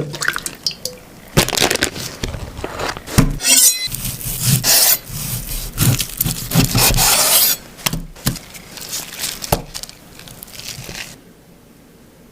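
Irregular knocks, scrapes and rustling bursts of handling, with a couple of longer hissing or scraping stretches in the middle, stopping about eleven seconds in.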